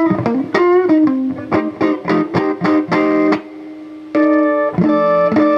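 Live blues band playing an instrumental fill: a guitar picks a quick run of single notes over keyboard, dips briefly about three and a half seconds in, then the band comes back in with held chords.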